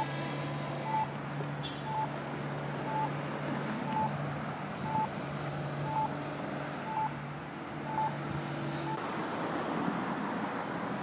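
A small tractor's engine running steadily under a short, high electronic beep repeating about once a second. About nine seconds in, the engine and beeping stop and wind noise on the microphone takes over.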